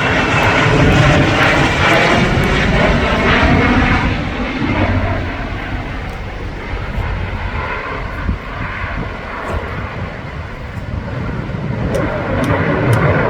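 Saab JAS 39 Gripen fighter jet flying past with a loud, rushing jet roar that fades after about four seconds and builds again near the end as it comes around.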